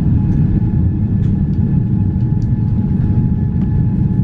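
Steady low rumble of cabin noise inside a Boeing 777 airliner in flight, with a few faint clicks.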